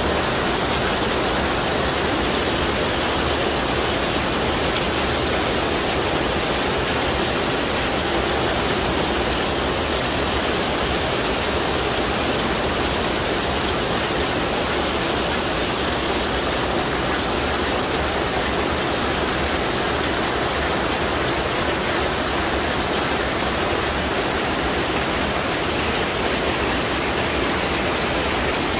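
Heavy rain falling in a steady downpour, with runoff pouring off the edge of a canopy roof onto pavement. It makes a loud, even hiss.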